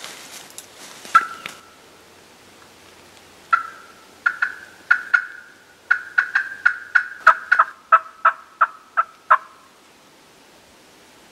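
Dry leaves crunching underfoot with a snap about a second in, then a run of about fifteen sharp, short turkey clucks, irregularly spaced and bunching closer together in the middle, over about six seconds.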